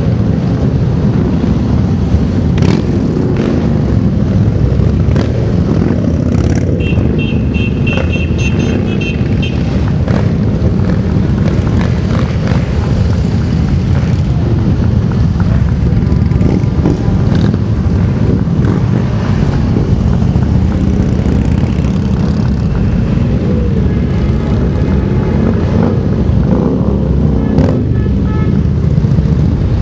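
A long procession of big touring and cruiser motorcycles riding past at low speed, many engines running together in a loud, steady, low drone.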